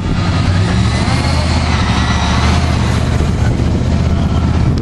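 Motor vehicle engine and road noise, a steady low hum, with faint high tones over it in the middle.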